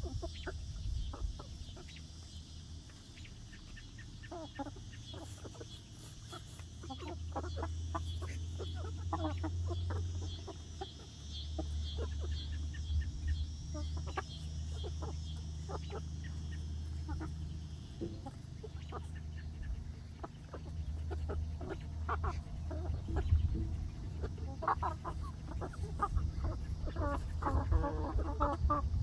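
Flock of young laying hens clucking softly on and off, with the clucking growing denser and louder near the end. A steady low rumble runs underneath.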